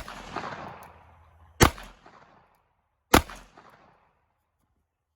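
Gunshots from a 9mm pistol: two sharp shots about a second and a half apart, each trailing off in a short echo, following the fading tail of a shot fired just before.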